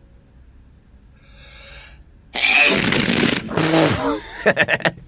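A person sneezing: a faint breath drawn in, then a loud, noisy sneeze about halfway through. A second burst follows, and a few quick sharp bursts come near the end.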